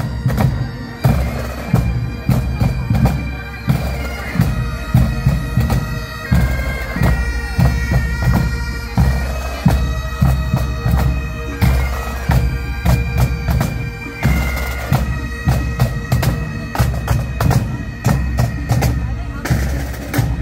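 Pipe band marching past: bagpipes playing a tune over their steady drone, with snare and bass drums keeping a steady marching beat.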